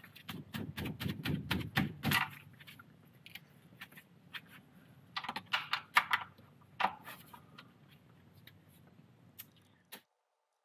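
A ratchet wrench with a 13mm socket clicking in quick runs as it works a tightly fastened oil drain plug loose: a dense run of clicks, a pause, a second run, then scattered clicks. The sound cuts off near the end.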